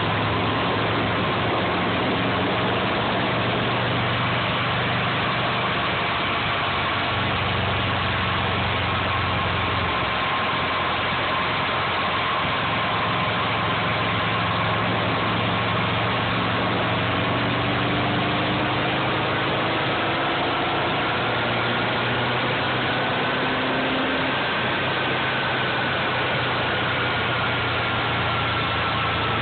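Subaru EJ22 flat-four engine idling steadily, under a constant rushing noise and a low hum.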